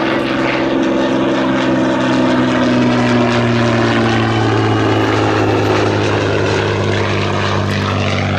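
Hawker Fury biplane's supercharged Rolls-Royce Kestrel V-12 engine and propeller running as the aircraft flies past, a steady loud drone whose pitch slides slowly down through the middle of the pass.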